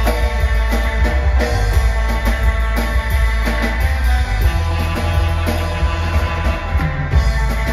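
A live surf rock band playing an instrumental: electric guitar lead over upright bass and a drum kit, loud and continuous.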